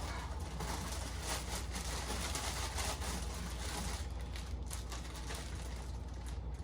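Rustling and crinkling of packaging as the animatronic's head is lifted out of its box, with a steady low hum underneath. The rustling thins out about four seconds in.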